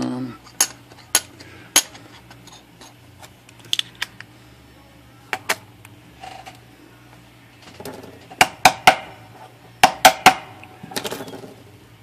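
Sharp metallic clicks and taps as a typewriter's metal mainspring drum and its cover disc and washer are handled and fitted together: a few scattered clicks, then a quick cluster of them near the end.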